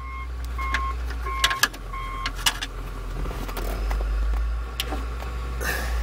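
Clicks and light rattles of metal and plastic as a Chevy Impala ignition lock cylinder, key in it, is worked out of the steering column housing. A short electronic beep repeats three times in the first couple of seconds over a steady low hum.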